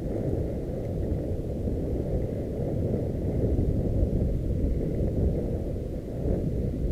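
Steady, muffled low rumble of wind buffeting and tyre-on-dirt vibration picked up by a camera riding on a mountain bike moving fast along a forest singletrack trail.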